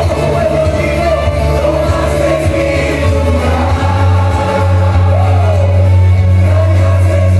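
Live church worship music: a band with sustained bass notes and singers with a choir, sung in Spanish, echoing in a large sanctuary. The bass moves to a new note about three seconds in.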